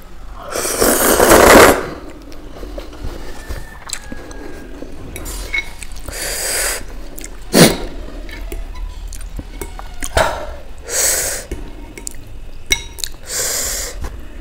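Slurping of soupy Maggi noodles, several slurps with the loudest about a second in. A metal fork clinks sharply against the glass bowl about halfway through.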